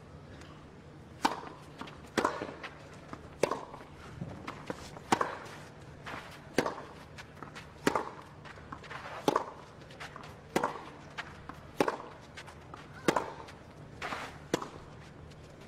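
Tennis ball struck back and forth by the players' rackets in a long baseline rally, a sharp pop roughly every second and a bit, with fainter ball bounces and footsteps on the clay between shots.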